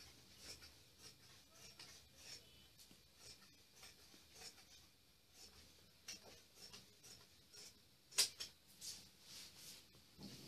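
Large tailoring scissors cutting through cloth: faint crisp snips about twice a second. A sharper, louder click comes about eight seconds in.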